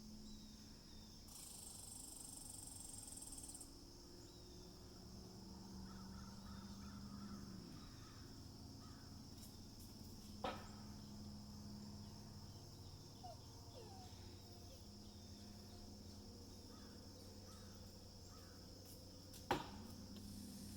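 Two sharp bangs, about nine seconds apart: pine cones knocked loose by a squirrel striking a metal barn roof. Insects chirr steadily underneath.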